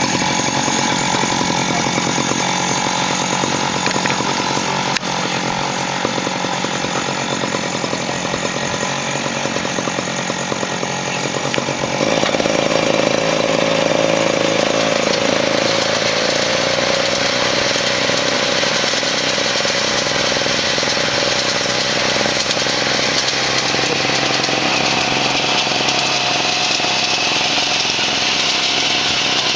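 Small engine of a ride-on model gasoline locomotive running steadily. About twelve seconds in it gets louder and steadier as the locomotive pulls its passenger car away along the track.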